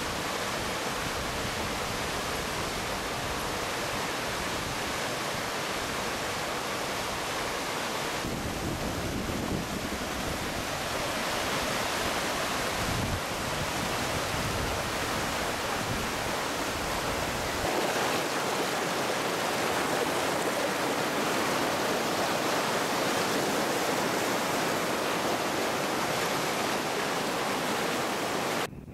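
River rapids rushing steadily over rocks: whitewater at a river chute, a constant even roar of water.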